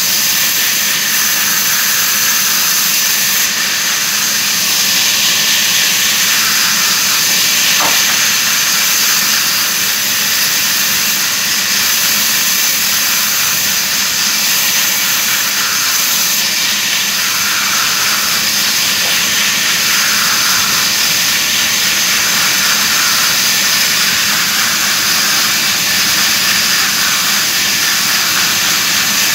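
Band sawmill cutting lengthwise through a log: a steady, high hiss from the blade in the wood, with the faint hum of the saw's electric motor underneath. There is one brief click about eight seconds in.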